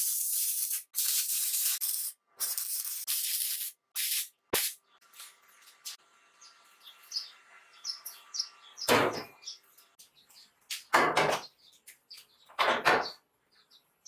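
Electric arc welding on the mixer's steel frame: a steady crackling hiss that stops and starts in several short bursts over the first few seconds, followed by a single sharp click. Faint high bird chirps come next, then three loud, short noisy rushes near the end.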